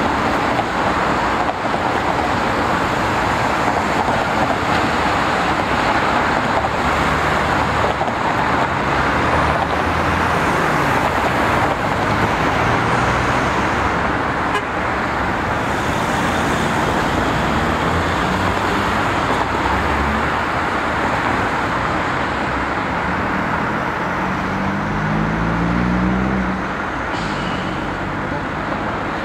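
Steady street traffic noise of cars and a PCC streetcar running along its tracks. Near the end a vehicle speeds up with a rising tone.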